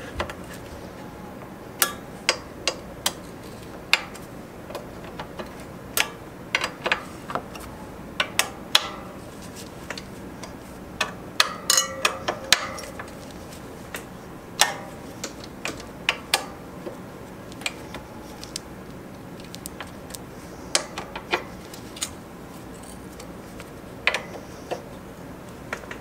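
Irregular sharp metallic clicks and ticks, singly and in quick clusters, from a 5 mm hex driver tightening the mounting bolts of a hydraulic disc brake caliper.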